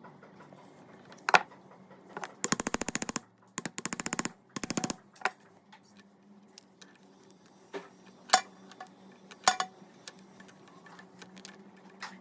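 Hands working on a flexible connector hose repair: scattered sharp clicks and taps of small parts, with three runs of rapid ratchet-like clicking between about two and five seconds in.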